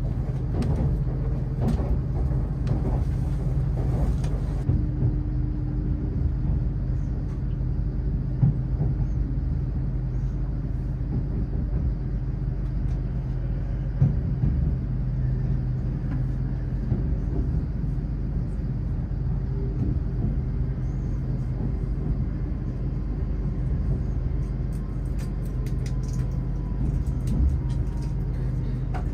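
Steady low rumble and hum heard inside a carriage of an LNER Azuma train as it runs into a station. A faint whine falls slowly in pitch through the second half, with a few light clicks near the end.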